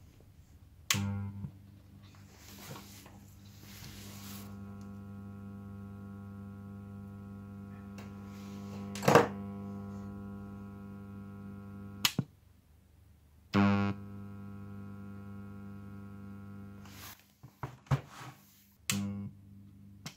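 PC speaker amplifier putting out a steady low buzzing hum through its speakers, the sign of a failed filter capacitor in the amp. The hum jumps louder briefly twice and is broken by several sharp clicks and knocks, the loudest about nine seconds in.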